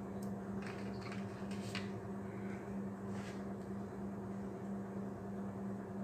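Steady low hum throughout, with a few faint short scrapes of a spatula against a glass mixing bowl as flour and grated carrot are stirred into the batter, mostly in the first few seconds.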